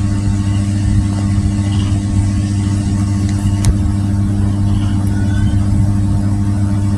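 Steady low hum, with a faint light knock or two around the middle as leaf-wrapped packets are set on the aluminium steamer tray.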